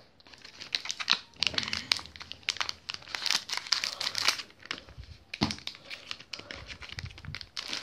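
Ink cartridge packaging crinkling and tearing as it is cut with scissors and pulled open by hand: quick, dense crackles with a short pause about five seconds in.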